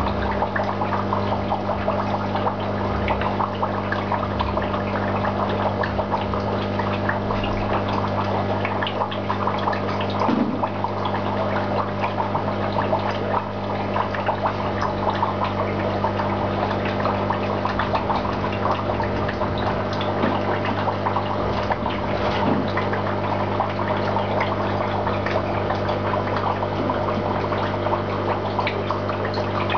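Aquarium water bubbling and splashing steadily from aeration, over a steady low electric hum.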